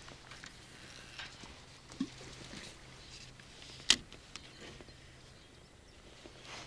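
Quiet outdoor ambience with a faint steady low hum and scattered faint clicks and taps, and one sharp click about four seconds in.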